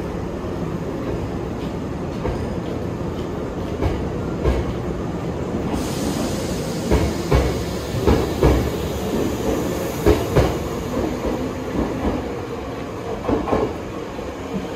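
Hankyu electric commuter train moving along a station platform: a steady rumble, with the clack of wheels over rail joints coming in quick pairs through the middle.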